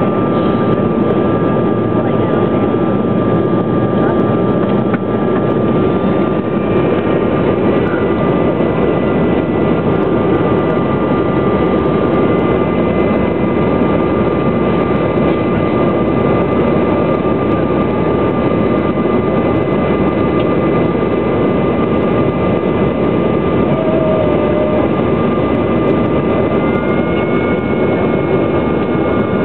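Steady cabin noise inside a CRJ-700 regional jet on approach: the rush of airflow and the drone of its rear-mounted GE CF34 turbofans, with a few steady whining tones. One whine steps slightly higher near the end.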